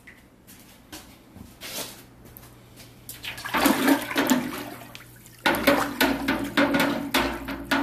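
Metal ladle stirring concentrated stock in a large aluminium stock pot, the liquid sloshing and splashing. It starts about three seconds in and gets louder and more vigorous from about halfway.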